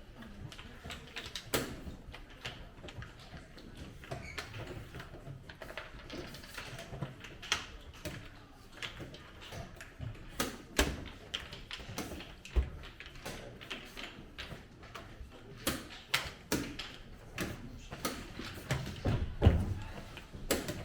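Irregular light clicks and knocks, a dozen or so spread unevenly, over faint room noise.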